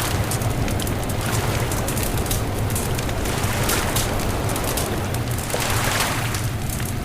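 Beach bonfire crackling with frequent sharp pops and snaps over a steady low rumble, with a brief swell in the rushing sound about five to six seconds in.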